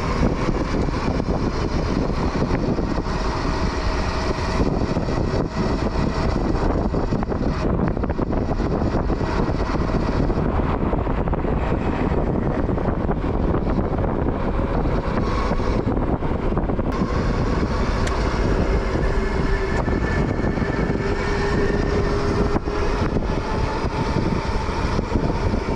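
Wind rushing over the microphone and road noise from a Super 73 electric bike riding along steadily. A faint whine drifts slightly in pitch underneath.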